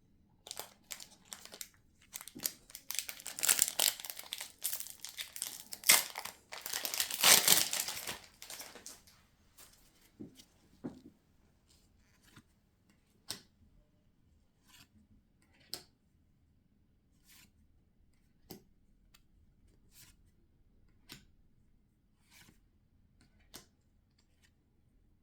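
Pokémon card packaging, plastic wrap or a foil booster pack, being torn open and crinkled for several seconds. It is followed by light scattered ticks and taps every second or two as the cards are handled.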